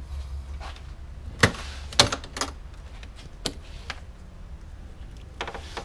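Scattered clicks and knocks of hands working parts and hoses loose in a car's engine bay. The loudest two come about a second and a half and two seconds in, with a few fainter ones later, over a low steady hum.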